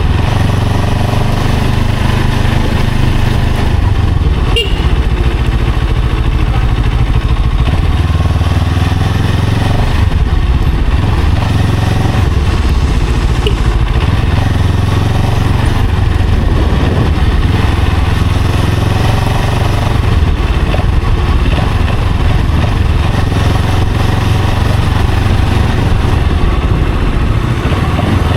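Motorcycle engine running steadily while riding in traffic, its pitch easing and picking up a little with the throttle.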